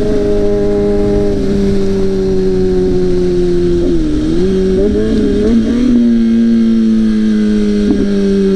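Straight-piped sport motorcycle engine running under way with no muffler. Its note dips and picks back up about four seconds in, then sinks slowly toward the end, over low wind rumble.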